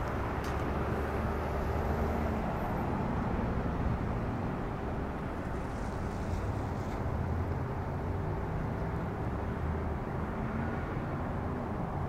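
Steady road-traffic rumble, a low, even background noise without distinct events.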